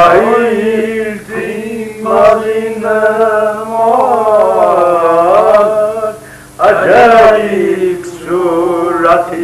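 A man singing a slow melody, holding long notes that waver in pitch, with short breaks about a second in and again about six seconds in.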